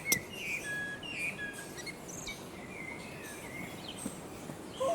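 Birds chirping in the background: short high whistled notes, mostly in the first two seconds, over a low steady hiss.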